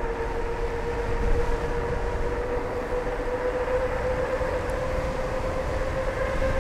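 The CMACEWHEEL AL26 e-bike's electric motor whines under full throttle, a steady tone slowly rising in pitch as the bike gathers speed. Wind rumbles on the microphone underneath.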